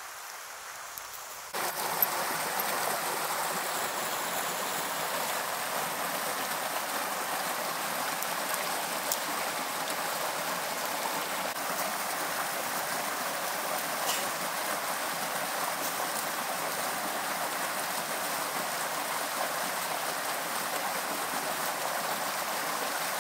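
River whitewater rushing steadily, cutting in abruptly about a second and a half in after a quieter hiss.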